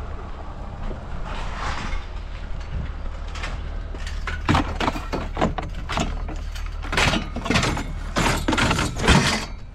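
A vehicle's engine idling as a low steady rumble, with a run of irregular knocks and clanks starting about four seconds in.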